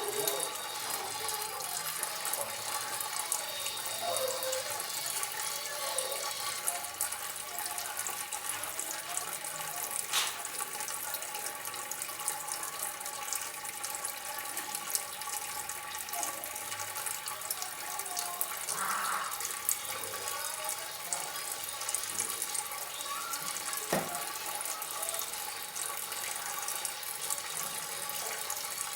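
Water trickling and splashing steadily, with a couple of brief faint ticks.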